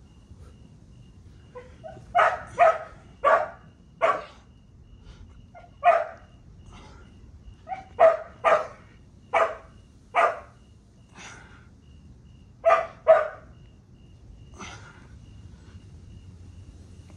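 A dog barking repeatedly: about a dozen short barks, several in quick pairs, spaced irregularly a second or more apart.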